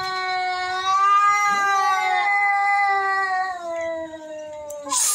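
A cat yowling: one long, drawn-out caterwaul held almost steadily, sagging a little in pitch and fading near the end, then cut off by a short harsh burst of noise.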